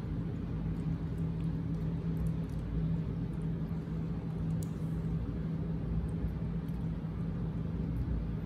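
Steady low mechanical hum carrying one constant tone, with a few faint clicks scattered through it.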